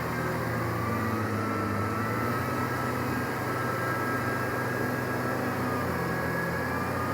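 Kubota M6040SU tractor's four-cylinder diesel engine running steadily, with a faint whine above it that drifts slightly in pitch.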